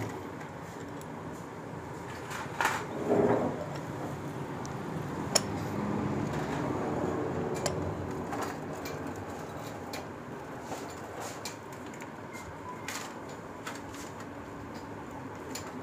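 Allen key working the bolts of a motorcycle engine's clutch side cover: scattered light metal clicks and scraping as the bolts are fitted and tightened, with a louder clatter about three seconds in.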